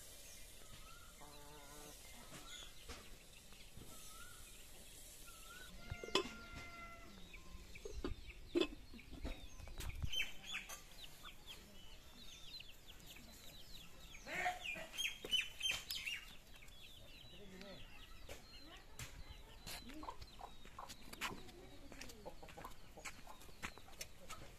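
Chickens clucking, mixed with small birds chirping, in short scattered calls. There are a few sharp clicks, about six and eight and a half seconds in.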